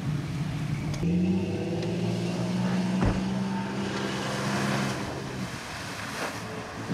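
Lifted Jeep pickup's engine running under throttle at a steady pitch as it ploughs through a mud hole, with a rush of water and mud spraying from its tyres in the second half.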